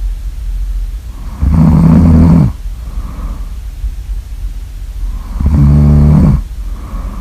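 Loud snoring: two deep, pitched snores on the in-breath, about four seconds apart and each lasting about a second, each followed by a soft, breathy out-breath.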